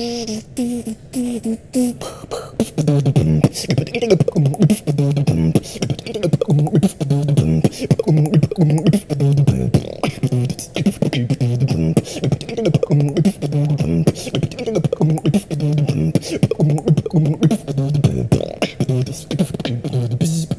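Human beatboxing by a single performer: a short run of stepped, pitched vocal notes, then from about three seconds in a steady rhythmic groove of deep bass hits with sharp clicks and snares.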